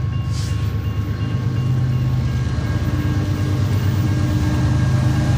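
BNSF GE ES44C4 diesel locomotives leading an intermodal freight train as it approaches, their engines running with a steady low drone that grows gradually louder as the train nears.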